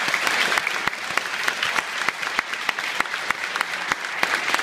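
Audience applauding, a dense clatter of many hands clapping at once.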